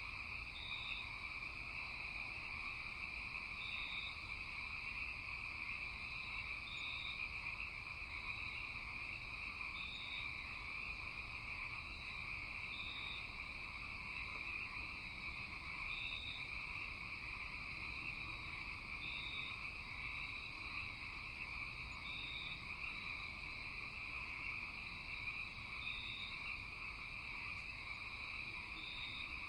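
Steady night chorus of frogs and insects, an even dense trill, with a short high chirp repeating about every three seconds.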